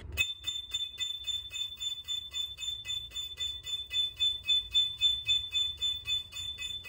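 Piccolo playing a long string of repeated high A's, about four tongued notes a second, all at one steady pitch.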